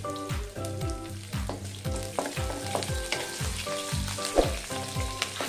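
Curry leaves, green chilies, mustard seeds and urad dal sizzling in hot oil in a stainless steel wok, with a wooden spatula stirring the tempering, over background music with a beat about twice a second.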